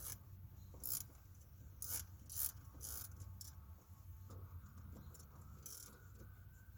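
Scattered light clicks and taps of a socket wrench and loose parts while a power window switch is being unbolted from a truck door, with a faint steady high whine coming in about four seconds in.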